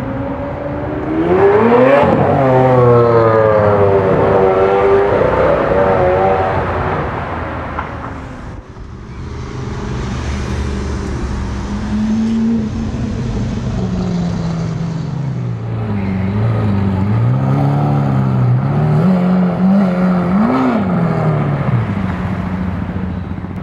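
Lamborghini Aventador SV's 6.5-litre V12 through an Armytrix aftermarket exhaust, loud, revving up sharply about a second in as the car accelerates and then dropping back. Later it runs at lower revs with several rises and falls in pitch, including a quick rev blip near the end.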